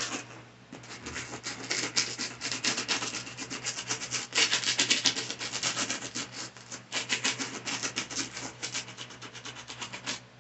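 Small bristle scrub brush scrubbing a sneaker that has been sprayed with sneaker cleaner, in rapid back-and-forth strokes of bristles rubbing on the shoe. The strokes stop just before the end.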